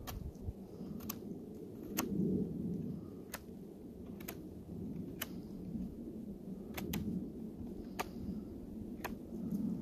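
Knife blade shaving and scraping bark off a wooden stick: a rasping scrape with sharp clicks about once a second as the blade catches and bites.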